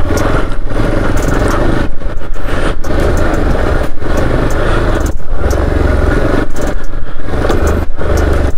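Hero XPulse 200 4V's single-cylinder engine running at low speed in first gear while the motorcycle creeps down a steep, rough road, a steady low rumble with road clatter. The sound cuts out briefly many times, every second or so.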